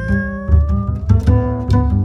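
Background music with a low plucked and bowed bass line and a held melody note that slowly rises in pitch.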